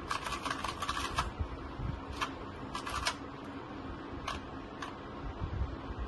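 2×2 Rubik's cube being turned fast by hand, its plastic layers clicking in quick runs: a dense flurry in the first second, then a few shorter bursts of turns.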